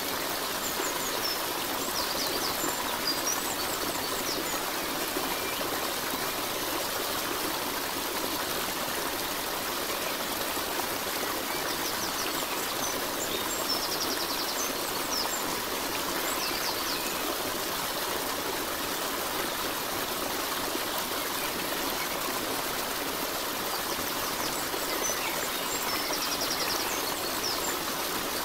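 Steady rushing of a stream of running water, with small clusters of faint high chirps that recur about every twelve seconds.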